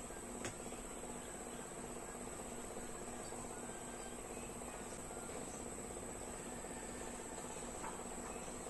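A steady, high-pitched, insect-like trill with a faint, evenly pulsing hum beneath it, and one light click of small metal parts being handled about half a second in.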